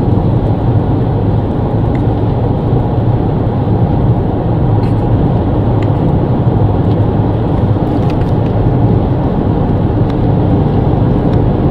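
Steady drone of tyre and engine noise inside a moving car's cabin, even throughout with no change in pitch.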